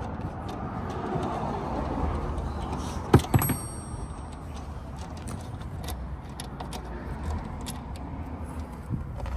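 Metal hand tools being handled against a bolted-in rear strut brace: rustling and small clicks, with two sharp metal clinks about three seconds in, the second ringing briefly as a combination wrench is set down on the brace.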